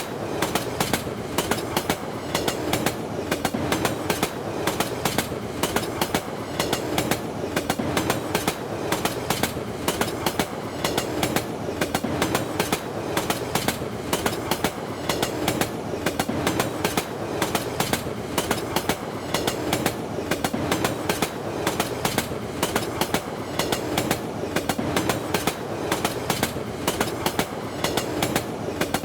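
Indian train running at speed, its wheels clattering over the rail joints in a steady, repeating clickety-clack over a continuous rumble.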